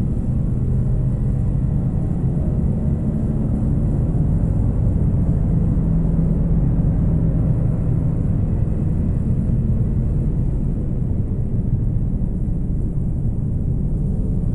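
Dark ambient drone music: a steady, low rumbling drone of guitar, synths and electronics, with a few held low tones beneath it.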